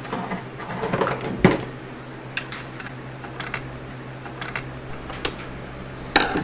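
Light metal clicks and taps of hand tools and small parts being worked on a DeWalt DW788 scroll saw's head, most likely Torx screws being undone. A cluster of clicks with one sharper knock comes in the first second and a half, then single clicks follow every half second to a second.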